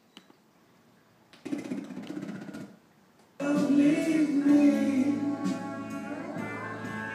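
Recorded music with singing, played through an Audio-Gd USB audio device, that cuts in for about a second, drops out, then comes back abruptly about three and a half seconds in. The breaks fit the USB playback fault that the recording sets out to show.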